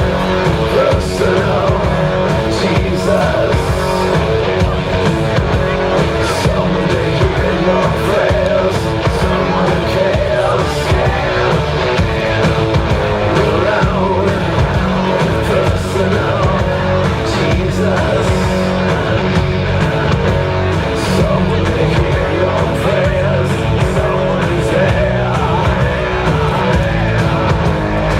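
Loud rock music with guitar and a singing voice, playing steadily without a break.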